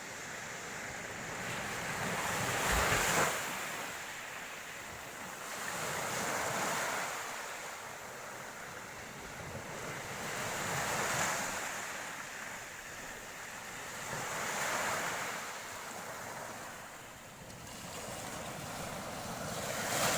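Sea waves breaking on a shoreline, the rush swelling and fading about every four seconds.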